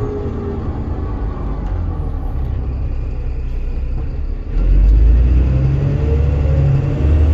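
Alexander Dennis Trident 2 double-decker bus running under way, heard from inside the upper deck as a steady low rumble. About four and a half seconds in, the engine gets much louder as the bus pulls away harder, with a rising whine.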